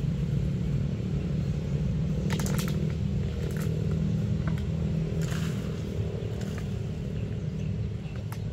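Steady low engine hum of a motor vehicle running nearby, with a few short crackles scattered through it.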